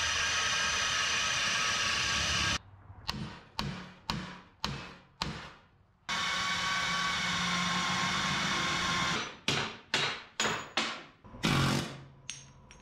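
Pneumatic air hammer driving an old bushing sleeve out of a Chevrolet control arm. It runs in two steady bursts of a few seconds each, and after each comes a string of short blips on the trigger.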